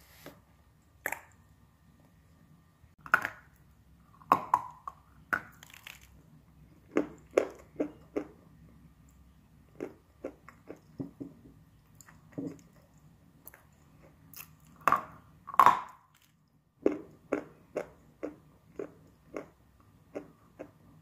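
A person biting and chewing crunchy brown clay: sharp, irregular crunches, with a few louder bites and runs of chewing crunches at about two a second.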